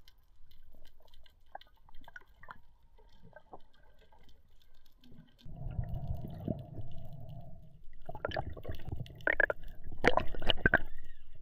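Muffled underwater sound from a freediver's camera: scattered faint clicks and taps, a stretch of low rushing and bubbling water in the middle, then louder knocks and clicks near the end.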